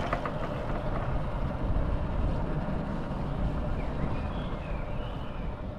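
A vehicle running as it drives along a jungle track, a steady low rumble with a brief knock right at the start. A bird gives a few short whistled calls in the second half.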